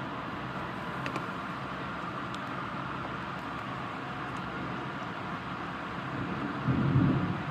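Steady rain falling, with a low rumble of thunder rolling in near the end.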